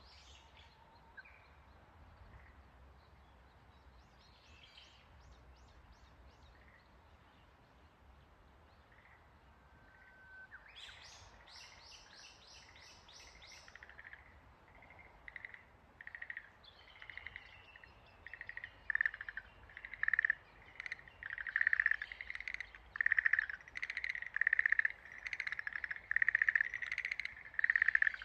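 Schlegel's green tree frogs calling: short pulsed calls that begin faintly around the middle and grow loud and frequent, one after another, over the last third. A brief run of high chirps sounds just before the middle.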